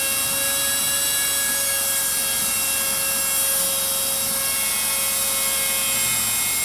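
650 W trim router used as the spindle of a small CNC router, running steadily at high speed: a steady high-pitched whine over a loud hiss.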